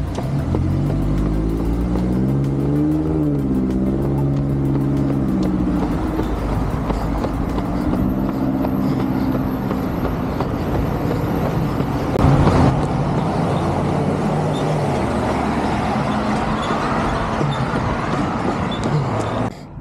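Road traffic: cars passing on a busy road, their engines rising and falling in pitch as they accelerate and go by, over a steady tyre and road noise. A louder surge of noise comes about twelve seconds in.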